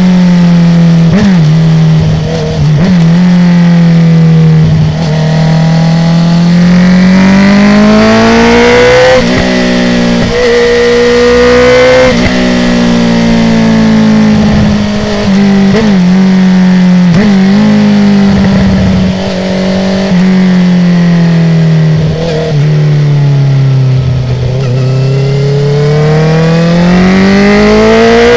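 2019 Honda CB650R's inline-four engine through a full Akrapovic titanium exhaust with the dB killer out, revving up and falling away several times, with short breaks in the note at gear changes.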